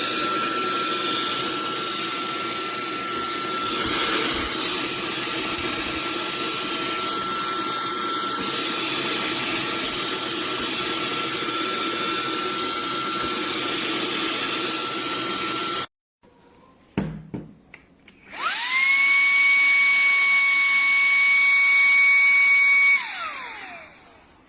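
Shark WandVac 2.0 cordless handheld vacuum running steadily with a constant high whine, then cutting out abruptly. After a few clicks it is switched on again: the motor whines up to speed, runs for about five seconds, and winds down with a falling whine when switched off.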